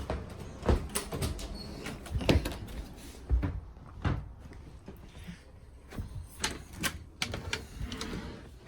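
Irregular knocks and clunks of things being handled, about a dozen spread unevenly over several seconds, the loudest in the first half.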